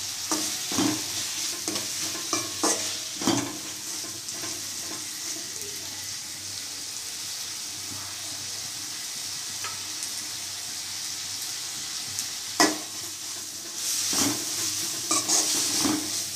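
Onions and ginger-garlic paste sizzling in hot sesame oil in a metal kadai, being sautéed until the raw smell goes. A metal spoon scrapes and clinks against the pan in quick strokes for the first few seconds and again near the end, with only the steady sizzle in between.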